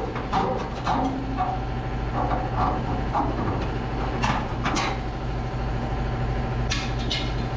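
Scattered sharp metal clanks and knocks, with the loudest two about four and five seconds in, over a steady low hum: steel tubing and tools being handled while fabricating a truck bed frame.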